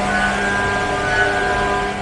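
Machine-shop machinery running: a steady hum with several held tones over a constant noise.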